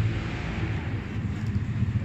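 Steady low rumble of indoor gymnasium room noise, with no distinct event standing out.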